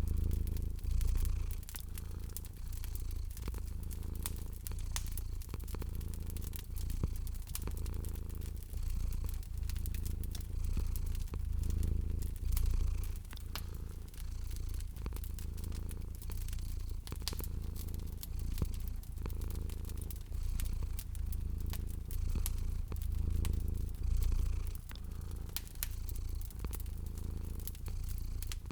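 Domestic cat purring steadily, the deep purr swelling and fading with each breath about every two seconds, over a wood fire crackling with frequent small sharp pops.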